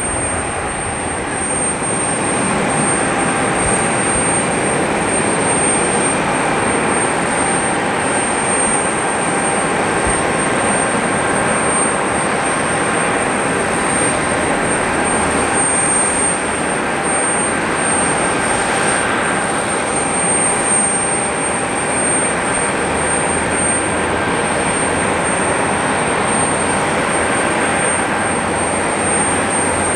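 Turbofan engines of an Embraer E170 jet landing and rolling out on the runway: a steady rushing noise with a faint high whine on top.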